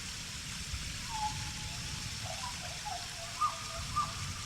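Steady rain with a low rumble underneath, and a few short chirping calls from about a second in, the two loudest near the end.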